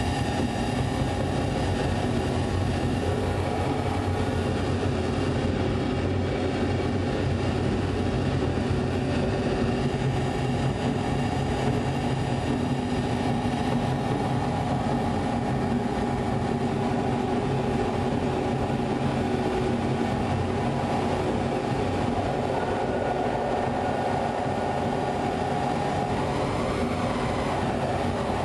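Live ambient electronic drone: a dense, steady wash of layered sustained tones over a deep rumble, with no beat.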